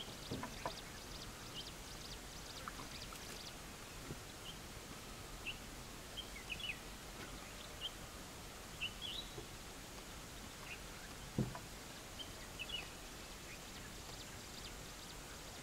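Open grassland ambience: a steady faint hiss with scattered short, high bird chirps, and a few brief low thumps, the loudest about eleven seconds in.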